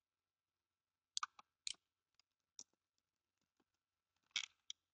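Faint computer mouse clicks: several short, sharp clicks, some in quick pairs, with the loudest cluster near the end.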